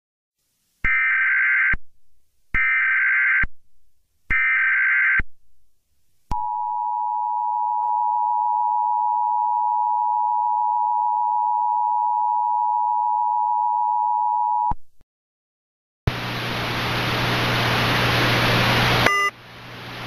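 Emergency Alert System signal: three short, harsh bursts of SAME header data, then the steady dual-tone EAS attention signal, held for about eight seconds and cut off sharply. About a second later comes a burst of hiss with a low hum, lasting about three seconds.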